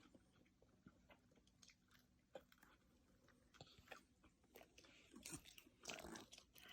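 Near silence: room tone with faint scattered clicks, and a few soft breathy noises about five to six seconds in.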